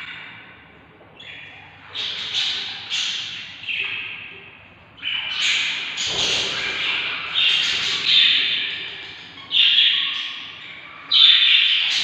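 Budgerigars giving a series of raspy calls, about a dozen in quick succession, each under a second long. A dull thud comes about six seconds in.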